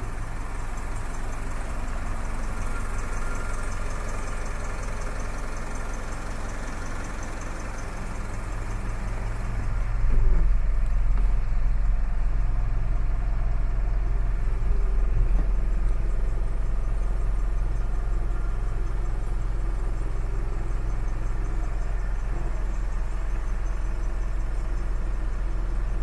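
Mitsubishi Fuso Canter's 3.0-litre turbo diesel engine idling steadily, heard from inside the cab, with a low drone that grows louder about ten seconds in.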